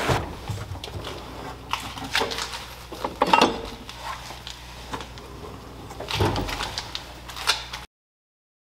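Steel tool chest drawers sliding open and shut, with clacks and rattles of metal tools and parts being moved inside. The loudest knocks come about three and a half seconds in and again after six seconds, and the sound cuts off suddenly near the end.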